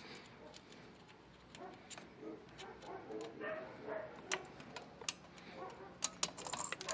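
Faint metallic clicks and taps of drum-brake hardware being handled, as a brake-shoe hold-down spring and washer are fitted onto the pin. A cluster of clicks comes near the end. Faint short whimpering from an animal sounds in the background.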